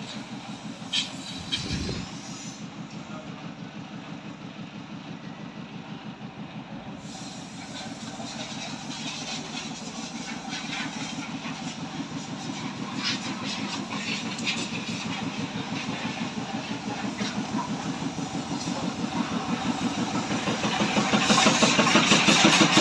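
Diesel engine of a parked coach idling with a steady, rapid throb that grows louder over the last few seconds. A couple of brief knocks come about two seconds in.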